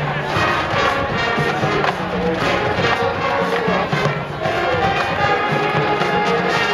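Marching band playing, brass-led, with sustained chords from trumpets and trombones.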